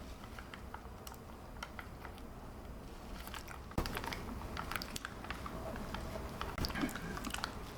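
Plastic dipping-sauce cup being pried and torn open by hand: scattered small clicks and crinkles, with one sharper snap about four seconds in.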